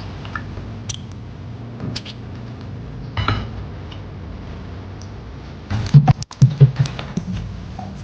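Kitchen handling sounds: scattered light clicks and taps over a low hum, then a cluster of louder knocks and clatters about six seconds in.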